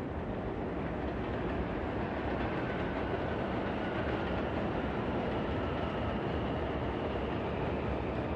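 New York subway train running in the station: a steady, loud rumble, with a faint high whine coming in about a third of the way through.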